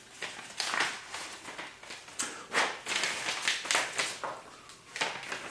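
Paper rustling in short irregular strokes as a greeting card is taken out and opened.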